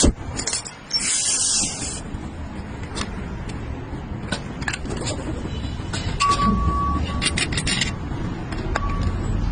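Scattered metallic clicks and clinks over a steady low rumble, with a short hiss about a second in and a brief steady tone around the middle.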